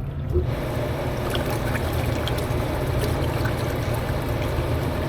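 Hot tub jets switched on, water rushing and churning steadily through the spa, over the low hum of the pump motor.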